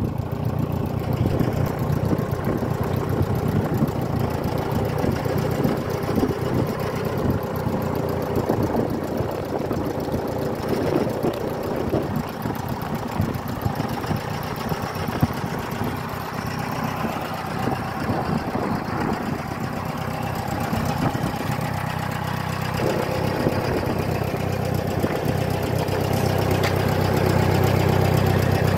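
Cockshutt 30 tractor's four-cylinder gasoline engine running at a steady idle, getting a little louder near the end.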